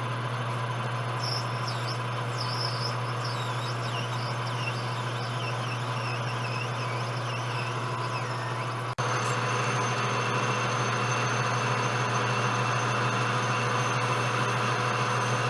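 Enco metal lathe running with a steady hum while turning Delrin handles, with faint wavering high chirps through the first half. It breaks off sharply about nine seconds in and resumes louder and hissier.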